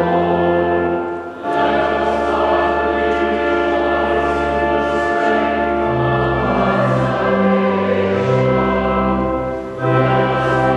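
Church choir singing held chords over steady sustained low notes, the singing pausing briefly about a second in and again near the end.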